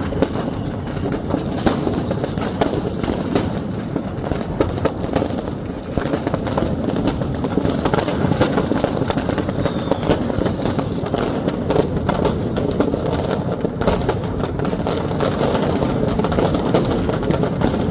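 Firecrackers going off in a burning fireworks shop: a dense, continuous crackle of many quick sharp bangs over a steady noisy din.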